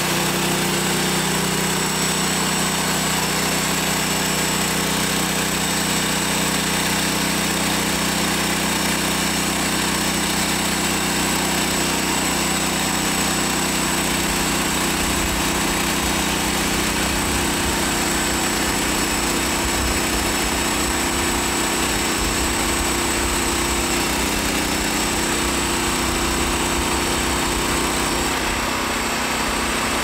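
Gasoline engine of a portable bandsaw sawmill running steadily under load as the band blade cuts lengthwise through a pine log. Its pitch drops a little near the end.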